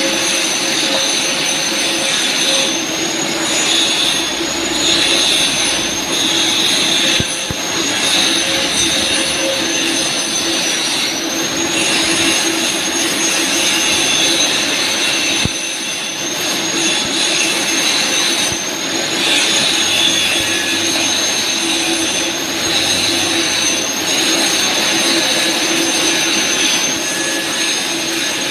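TIG welding arc running continuously: a steady loud hiss with a thin high whine that wavers slightly in pitch, dipping briefly a couple of times.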